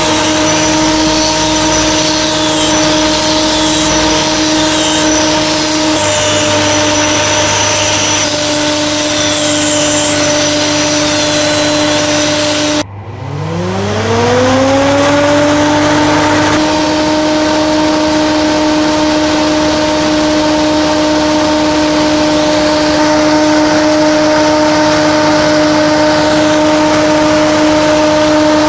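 Homemade axial exhaust fan with its electric motor running at full speed, a steady hum with a constant blade tone. About 13 seconds in the sound cuts out, then the motor spins up again, its tone rising in pitch over about two seconds before settling back to a steady run.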